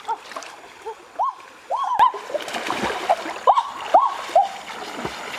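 Water splashing and sloshing in a shallow river, with many short chirps that rise and fall in pitch scattered through it.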